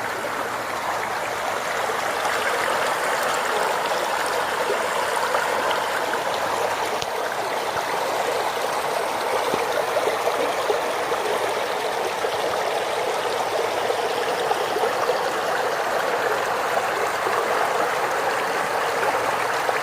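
Floodwater rushing steadily, a continuous even rush of fast-flowing water running high after heavy rain.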